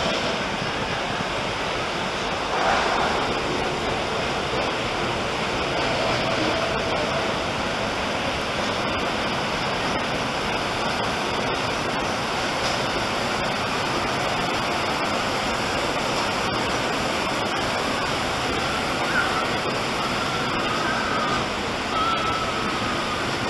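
A log flume boat riding up the conveyor-belt lift hill, with a steady rushing noise of running water and the lift.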